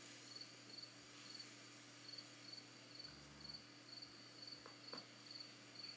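Faint insects chirping in grassland: a short high chirp repeating about two to three times a second over a fainter, steady high hum.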